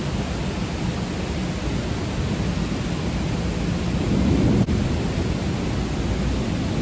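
Steady rushing hiss of heavy rain, with a brief louder swell around four seconds in and a single sharp click just after.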